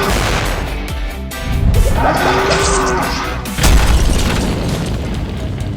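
Background music with a sudden heavy boom-like hit about three and a half seconds in.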